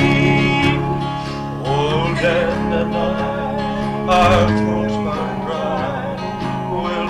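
Acoustic guitar playing with a man's voice singing along.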